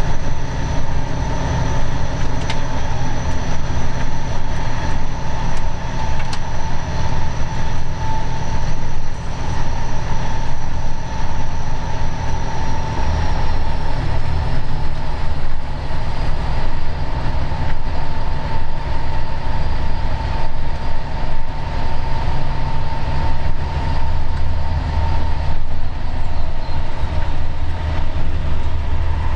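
Diesel locomotive under way, heard from its cab: a steady low engine drone and rail rumble with a constant whine over it. A faint higher whine lowers slightly in pitch about halfway through.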